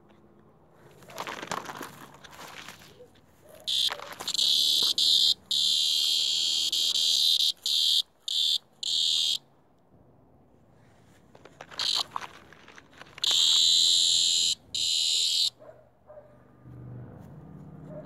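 Cicada giving its loud, harsh distress buzz while a puppy noses at it in the grass: a long stretch of buzzing about four seconds in, broken by a few short gaps, then a second burst of about two seconds.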